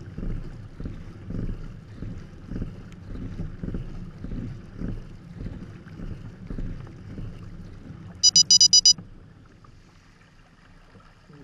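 Low pulsing water and wind noise as a surf ski is paddled hard, then a quick run of five high electronic beeps about eight seconds in, after which the noise falls away.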